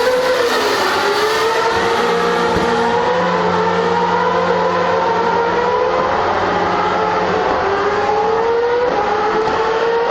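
A 2013 Formula One car's 2.4-litre V8 engine running, its pitch dipping and rising gently and climbing near the end. A steady lower hum sounds under it through the middle.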